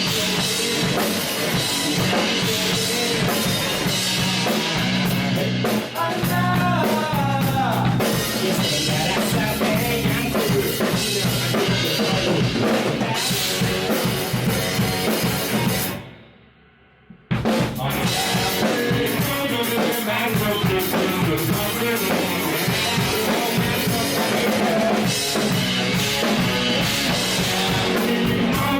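Live rock band playing an instrumental break, with full drum kit (bass drum, snare and rimshots) over guitars and bass. About sixteen seconds in the music drops out for about a second, then the band comes back in together.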